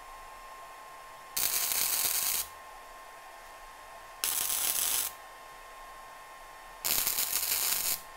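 Flux-core wire welder striking three short tack welds, each a burst of arc noise about a second long, spaced roughly two and a half seconds apart, tacking a metal patch plate in place.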